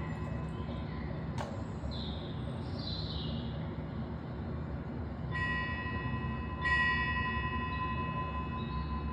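A metal bell struck twice, about five and a half and seven seconds in, each note ringing on, over a steady low background rumble. A click and a few short high chirps come before the bell.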